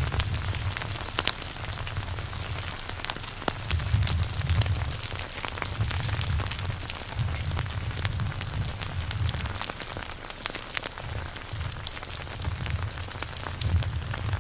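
Dense crackling noise with many scattered sharp pops and ticks, over a low rumble that swells and fades irregularly.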